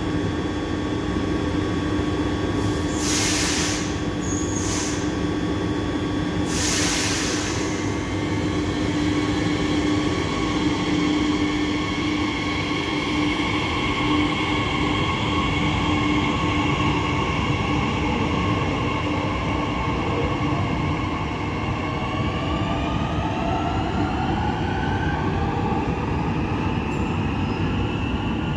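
A Z 50000 (Francilien) electric multiple unit pulling out and accelerating away. Three short loud hisses of air come about three to seven seconds in, then the motors' whine rises steadily in pitch as the train gathers speed, over a constant rumble of wheels on rail.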